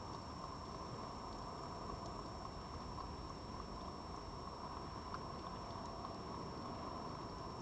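Steady hiss from the garden camera's audio, with a thin, steady high electronic whine over it and a few faint, scattered clicks.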